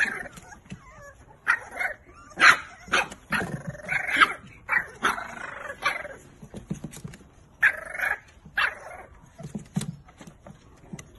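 French bulldog puppies yapping and barking in play, a string of short high-pitched yips coming at irregular intervals.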